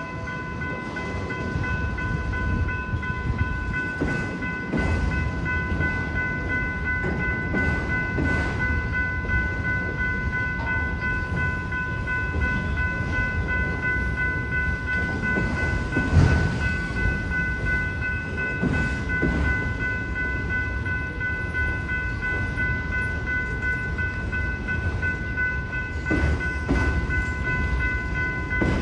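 Freight train cars rolling through a grade crossing: a steady low rumble with irregular wheel knocks over the rail, one louder knock partway through. A steady high ringing tone sounds throughout.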